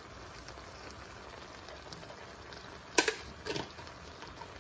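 Ground beef with bell peppers and onion sizzling quietly in a nonstick pan. A sharp click about three seconds in and a smaller one half a second later.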